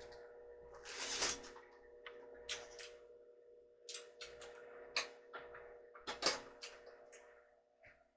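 Microwave oven running with a steady hum, with scattered clicks and knocks over it; the hum stops just before the end.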